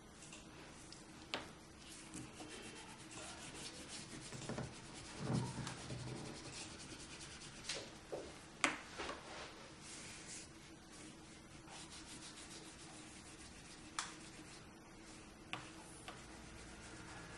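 Wax crayon scribbling back and forth on paper, a fast scratchy rubbing, with a few sharp clicks and one soft low bump along the way.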